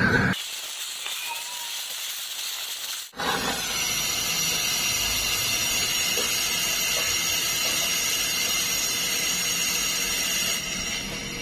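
Steady hissing of pressure escaping through a homemade waste-oil burner's steam pipe and valve fitting during a leak check. A thin high hiss breaks off abruptly about three seconds in, then returns fuller and steady until it drops near the end.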